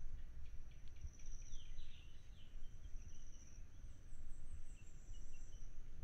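Insects trilling in mangrove forest: a steady high buzz with pulsing trills laid over it. A bird gives a few quick chirps about one to two and a half seconds in, over a steady low rumble.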